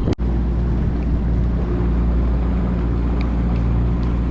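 Boat's outboard motor running steadily at a constant speed, an even low drone with wind and water noise over it.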